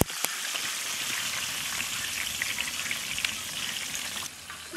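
Hot oil sizzling and crackling steadily around large spice-coated pieces of whole mutton deep-frying in a wide pot. Two sharp clicks near the start, and the sizzle turns quieter near the end.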